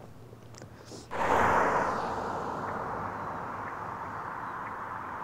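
A steady outdoor rushing noise that starts abruptly about a second in and slowly eases off, with faint ticks about once a second.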